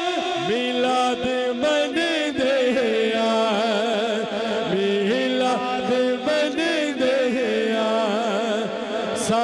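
A man singing a Punjabi naat unaccompanied by instruments, holding long drawn-out notes with wavering ornaments and no clear words.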